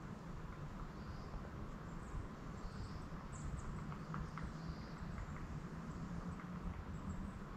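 Faint forest ambience: a low, steady wind rumble on the microphone, a few short, distant bird chirps, and a few scattered light footsteps on the trail.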